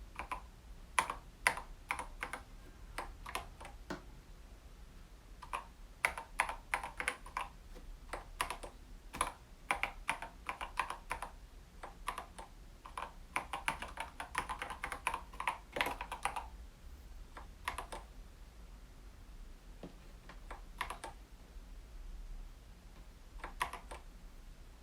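Keys of a COX CK108 mechanical keyboard with Gateron Yellow linear switches and tall SA keycaps being pressed in irregular runs of clicks: a dense stretch through the middle, then only a few separate presses near the end. The presses are key combinations cycling through the keyboard's LED lighting effects.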